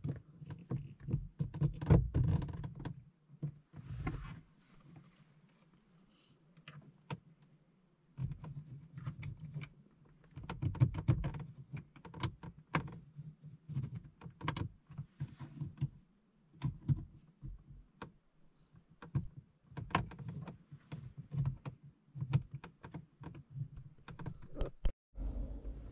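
Irregular clicks, knocks and rattles of glovebox trim as the glovebox lamp is worked loose by hand, in clusters with short pauses.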